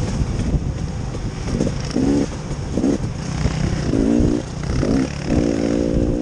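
Small off-road vehicle engine running with a steady low rumble, and a pitched drone that comes and goes, strongest near the end.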